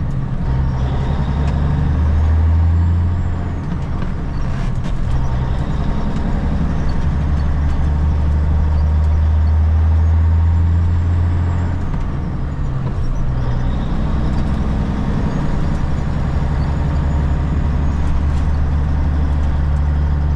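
Semi truck's diesel engine running under way, heard from inside the cab as a steady low drone. The engine note changes pitch a couple of times, around four seconds in and again near the middle.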